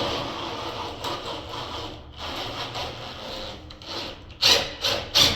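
Drilling into a wooden door with a 1/4-inch bit, a steady rough grinding that pauses briefly about two seconds in. About four and a half seconds in it gives way to loud, rhythmic scraping strokes, about two or three a second.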